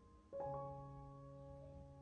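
Soft background piano music: a new chord is struck about a third of a second in and rings on, slowly fading.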